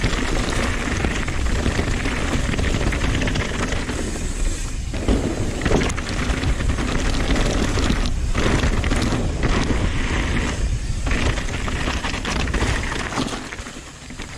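Wind buffeting the handlebar camera's microphone and a downhill mountain bike rattling as its tyres run over loose dirt and rocks on a fast descent. The noise eases off briefly near the end.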